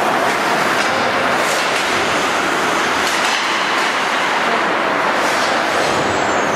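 Steady rushing noise of an indoor ice rink during hockey play, with a few short, sharp scrapes of skates on the ice.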